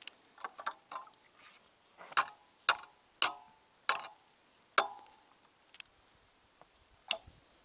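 A series of sharp knocks or clicks, about six in the middle few seconds and one more near the end, irregularly spaced, some with a short ringing tail.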